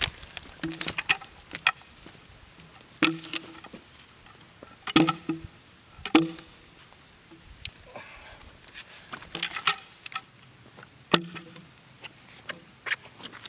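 A cant hook working a large sweet gum log: irregular sharp knocks and clanks as the hook bites into the bark and the log is levered and rolled, about a dozen hits, some with a brief metallic ring.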